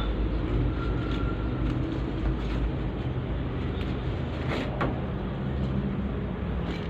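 Excavator's diesel engine running steadily, with a couple of sharp knocks a little under five seconds in.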